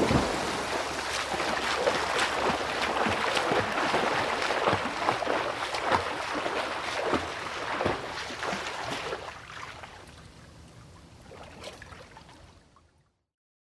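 A swimmer jumping into a swimming pool with a loud splash, then swimming strokes splashing in quick succession, fading out from about nine seconds in.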